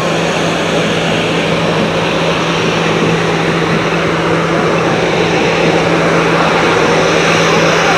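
Steady engine and road noise from fire-service vans driving slowly past close by, with a constant low hum underneath.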